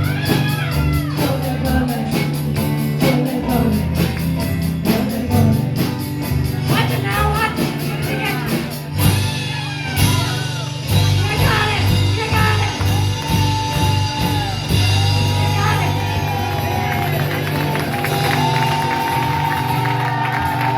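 A live band plays with a lead singer over a steady bass line and drum beat. Near the end a single long sung note is held.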